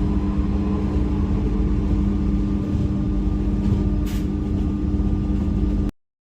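Paris-region electric multiple-unit train (RER or Transilien) running, with a steady electrical hum over a low rumble and a short hiss about four seconds in. The sound cuts off abruptly just before the end.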